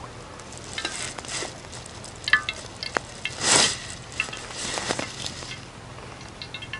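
Cooking oil poured into a hot steel wok, sizzling in short bursts, the strongest about halfway through, with a few sharp clicks over the top.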